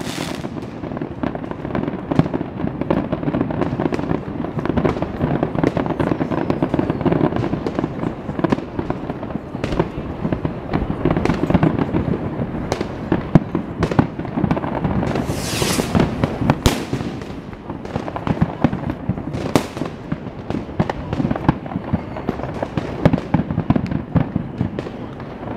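Aerial fireworks display: a dense, continuous barrage of shell bursts and crackling stars, with a brief hissing rush about fifteen seconds in.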